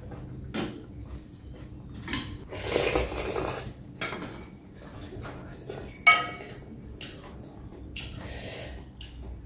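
Eating noodle soup: slurping and chewing in short bursts, with chopsticks clinking against a glass bowl. The loudest sound is one sharp clink about six seconds in that rings briefly.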